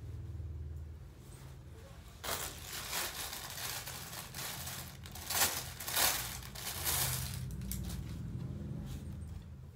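Clear plastic packaging crinkling and rustling as it is handled and opened. It starts about two seconds in, with a few louder crackles in the middle, and stops shortly before the end.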